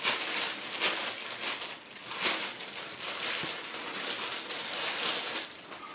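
Clear plastic wrapping crinkling and rustling as it is pulled off a fishing reel's screw-in crank handle, dying away near the end.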